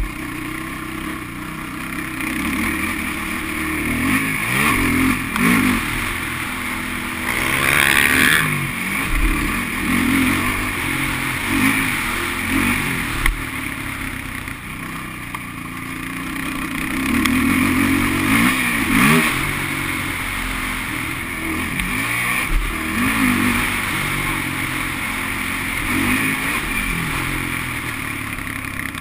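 Sport ATV engine revving under load as the quad is ridden around a dirt motocross track, its pitch rising and falling again and again through acceleration and corners, with the loudest surges about 8 and 19 seconds in.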